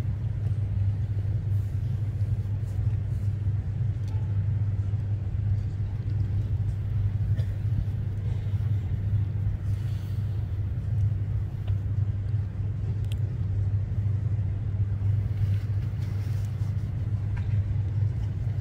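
A steady low rumble that runs unbroken, with a few faint ticks and no voices over it.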